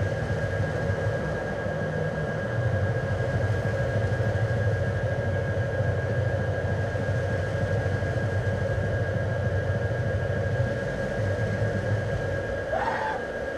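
Steady droning hum with a constant high tone and a pulsing low throb. Near the end a short rising sound cuts briefly through it.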